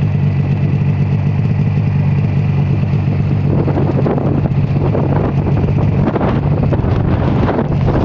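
Storm wind buffeting the microphone in a steady low rumble, with surf breaking and washing on the shore from about three and a half seconds in.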